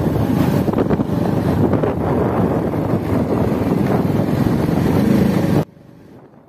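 Wind buffeting the microphone over the running engine and road noise of a Euro Motor motorcycle being ridden at a steady pace. The sound drops away abruptly near the end.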